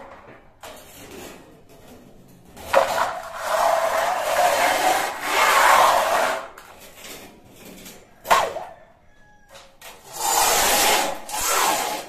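A thin steel sheet being handled on a concrete floor: long scraping rubs as it slides and flexes against the concrete, with one short sharp clatter partway through.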